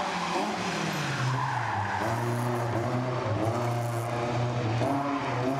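Rally car's engine running hard as it slides around the cones, its tyres skidding on the concrete in the first second or so. The engine then holds a steady note, changing pitch near the end.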